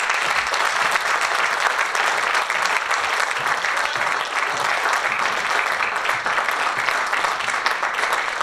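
Audience applause: dense, even clapping from many hands, held at a steady level.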